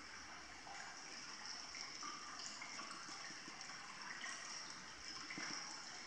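Faint, steady trickling of hot-spring water in a wooden bathtub.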